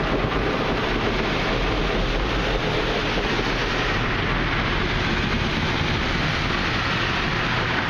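Ryko SoftGloss XS 2.0 rollover car wash working over the car, heard from inside the cabin: water spraying onto the body and glass while the cloth brushes slap against the car, a loud, steady rush of noise.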